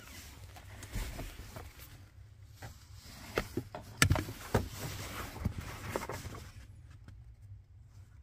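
Hands working at car interior trim, carpet and wiring: scattered knocks and clicks with rustling, the loudest knock about four seconds in, over a steady low hum.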